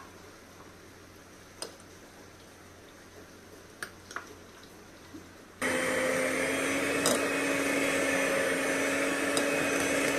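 A few light clicks, then an electric mixer switches on about halfway through and runs steadily with a constant hum, beating butter into cake batter.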